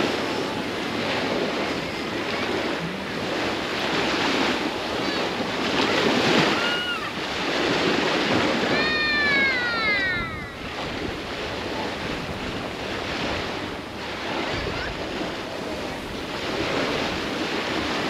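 Surf washing onto a sandy beach in a steady, swelling wash. About nine seconds in comes a brief high cry that falls in pitch, with a few shorter high calls just before it.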